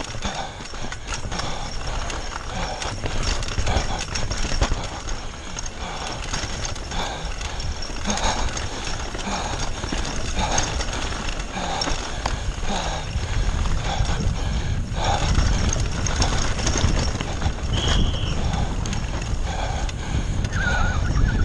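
Wind rushing over an action camera's microphone while a Foes Hydro 2 e-bike rattles and knocks over a rough, rocky dirt trail at downhill race speed. There are a couple of short high squeals near the end.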